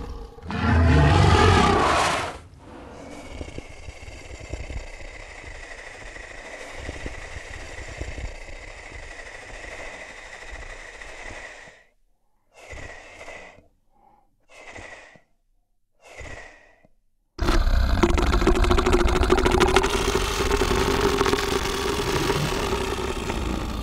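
A series of made-up dinosaur calls. A loud call comes about half a second in, then a quieter drawn-out call follows. Three short calls come in the middle with silence between them, and a long loud call starts about two-thirds of the way in.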